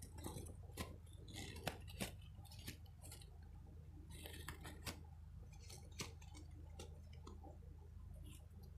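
Close-miked ASMR trigger sounds: irregular light taps and clicks on a small object, with short scratchy rustles in between.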